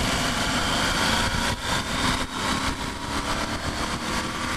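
Yamaha Super Ténéré 1200 parallel-twin engine running under way, its note drifting slightly, under a heavy rush of wind over the onboard microphone.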